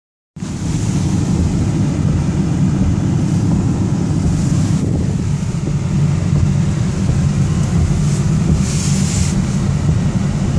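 Heavy rain beating on a car and its tyres running through standing water, heard from inside the cabin as a loud, steady rumbling wash, with a brief louder hiss about nine seconds in.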